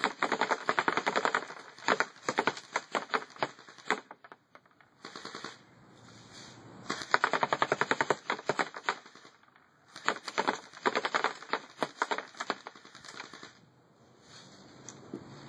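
Double Eagle Hybrid Spetsnaz AK47 airsoft rifle firing on full auto: several long strings of rapid shots with brief pauses between them.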